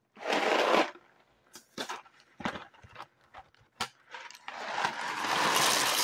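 Dry penne pasta rattling in its cardboard box and pouring into a soup pot: a short rattle just after the start, a few scattered clicks, then a longer pour that builds from about four and a half seconds in.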